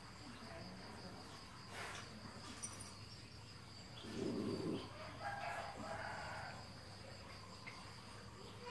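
A rooster crows once, a little after five seconds in, over a steady high insect drone. Just before the crow there is a short, louder low noise.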